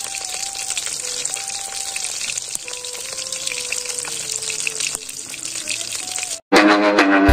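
Whole tilapia sizzling and crackling in hot oil in a black wok. About six and a half seconds in the frying cuts off and loud electronic music starts.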